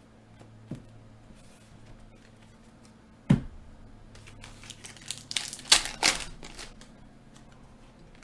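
A foil trading-card pack of hockey cards being torn open and crinkled, a quick cluster of sharp crackles about halfway through. Before it, a single thump about three seconds in.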